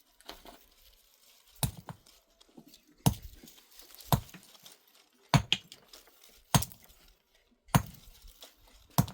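Hard, clinking strikes, about seven of them at an even pace of roughly one every second and a bit.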